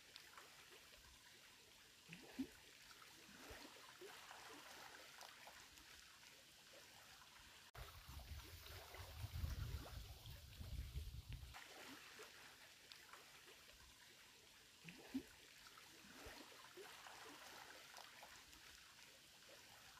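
Near silence: faint outdoor ambience with a soft hiss. A low rumble comes in for a few seconds near the middle, and there are two short knocks, one early and one about three quarters of the way through.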